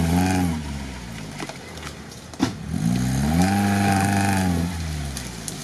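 Lada Niva engine revved hard under load twice, pitch rising, holding and falling off each time, as it strains to tow a stalled, non-starting UAZ out of deep mud on a taut line. A short sharp knock falls between the two revs.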